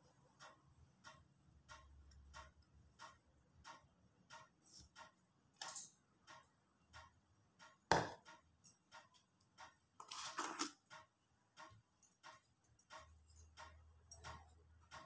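Steady, evenly spaced faint ticking. About eight seconds in there is one sharp knock on the steel mixing bowl as jaggery is tipped in from a measuring cup, and a short rustling scrape follows a couple of seconds later.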